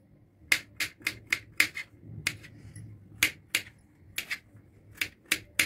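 Knife chopping garlic cloves on a cutting board: sharp, irregular taps of the blade hitting the board, about two or three a second, with a short lull around two seconds in.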